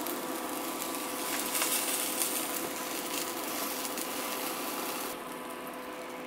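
A banh xeo crêpe frying in oil in a nonstick skillet, a steady sizzle with a few scrapes and taps of a plastic spatula as it is folded. The sizzle drops away about five seconds in as the pan is lifted off the hob.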